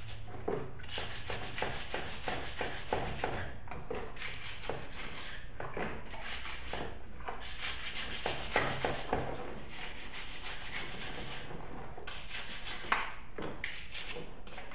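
Stiff bristle brush scrubbing a wet chainsaw body with Simple Green degreaser: fast back-and-forth strokes in bouts of one to three seconds, with short pauses between bouts.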